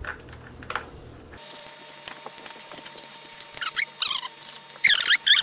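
Small metal clicks of washers and nuts being handled on the motor mounting bolts, then a run of loud, high squeaky chirps that glide downward in pitch, loudest near the end.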